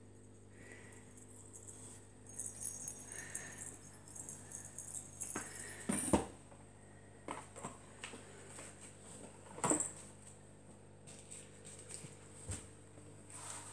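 A kitten playing with toys: scattered rustles and clicks of toys and paper being batted about, with a couple of louder knocks about six and ten seconds in.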